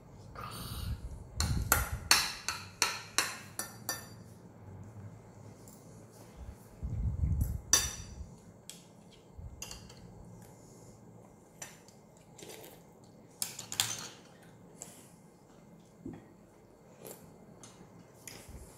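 Metal spoons and forks clinking and scraping against ceramic plates and bowls during a meal: a quick run of clinks a couple of seconds in, then scattered single clinks. A dull thump about seven seconds in.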